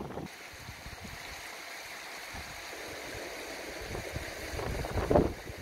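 Shallow river running over stones: a steady, even rush of water, with a short louder noise a little after five seconds in.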